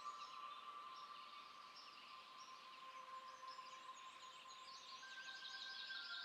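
Faint birdsong: many small birds chirping and twittering together, over a soft background of steady held tones.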